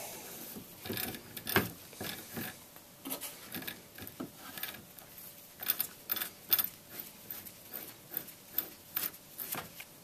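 Inner tie rod being screwed by hand onto the threaded end of a Honda Accord steering rack: faint, irregular metallic clicks and rubbing as the threads and the locking washer turn against each other.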